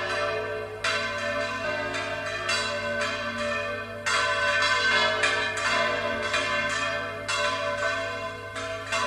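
Church tower bells being swung full circle (volteo), several bells striking at irregular intervals about a second apart, their tones overlapping and ringing on between strikes.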